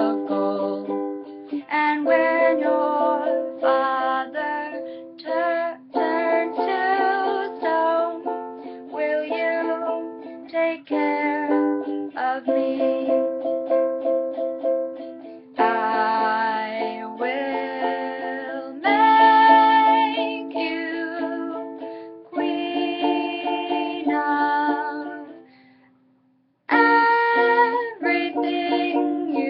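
A ukulele being strummed with a woman's voice singing along. Near the end the music stops for a moment, then starts again.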